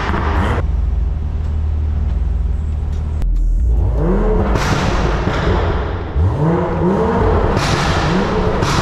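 Straight-piped, stage 2 tuned BMW engine being revved. It starts with a few seconds of low, steady running, then the pitch climbs and drops about five times in quick succession as the throttle is blipped.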